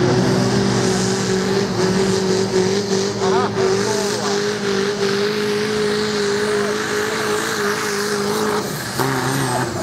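Engine of a tractor-pulling competition vehicle running loud at steady high revs during a pull, its pitch holding level for most of the time, then the revs drop about nine seconds in.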